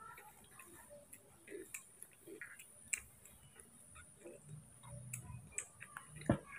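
Faint, irregular clicks and smacks of two baby monkeys sucking milk from feeding bottles, with one sharper click near the end.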